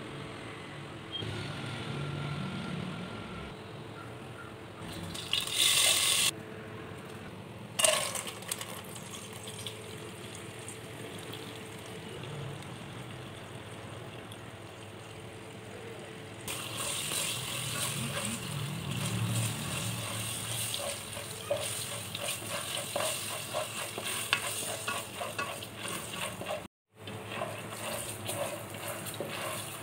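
Popcorn kernels frying in hot oil in a pot: dense crackling and sizzling, with a ladle stirring them. The crackle starts about halfway through, after a brief loud rush and a single knock earlier on.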